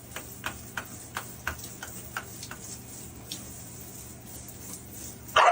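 A run of sharp ticking clicks, about three a second for a couple of seconds, then a few sparser ones over a low steady hum, ending in one short, much louder sound near the end.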